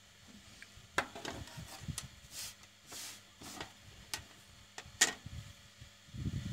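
A modem circuit board being handled and set on a workbench: a few sharp taps and knocks with short scraping sounds between them, and a low thump near the end.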